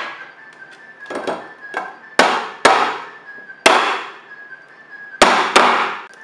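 A rectangular metal mould, upside down on a ceramic plate, knocked with the hand to loosen the set citrus jelly inside: a series of about seven sharp knocks, five of them loud, each ringing out briefly.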